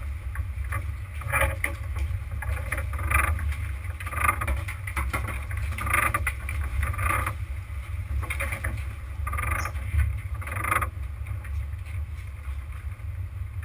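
Luhrs sportfishing boat's engine running in a steady low rumble, with irregular short splashes of water over it.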